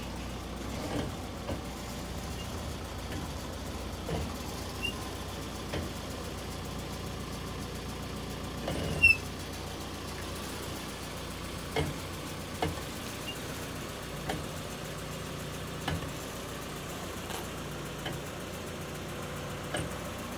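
Nissan D21 pickup's engine running at idle as the truck creeps slowly along on its newly replaced rear brake shoes during a brake test. Short clicks and knocks come every second or few seconds, the loudest about nine seconds in.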